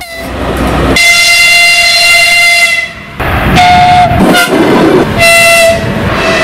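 Russian locomotive horns sounding: a long blast of nearly two seconds, then two shorter blasts, with rolling train noise between them.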